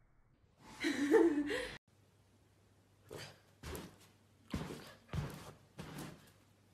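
Siberian husky gives one short, wavering, howl-like vocalization that cuts off abruptly. Then about five short soft sounds come roughly half a second apart as a husky puppy jumps and paws at a cat.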